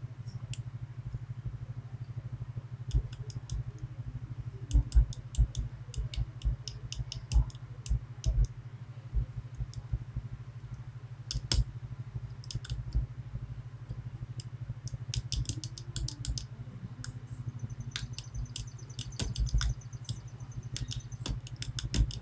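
Lock pick and tension wrench working the pins of a 5-pin Medeco Biaxial lock: irregular small metallic clicks and taps, over a steady low hum.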